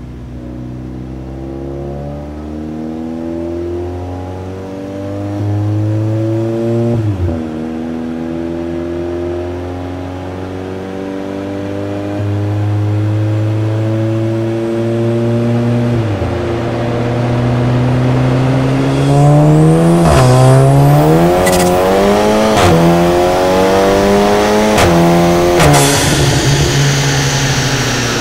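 Volkswagen Golf VII GTI's turbocharged 2.0-litre four-cylinder pulling under load on a chassis dyno through an Armytrix full exhaust. The engine note climbs steadily in pitch and drops at each upshift, twice in the first sixteen seconds. Later the shifts come quicker, with a sharp crack at several of them.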